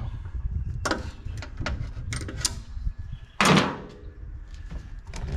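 Clicks and knocks of hands working on a push mower's fuel line, with one louder clunk about three and a half seconds in.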